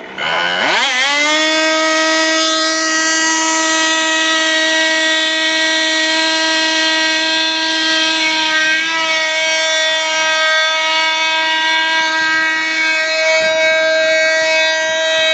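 Model airplane engine revving up sharply in about the first second, then running at a steady high pitch under full throttle, with slight wavers in pitch partway through.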